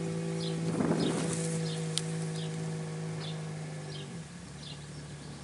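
A steady motor hum that drops a little in pitch about four seconds in, with a short high chirp repeating about every two-thirds of a second, a brief rustle about a second in and a single sharp click.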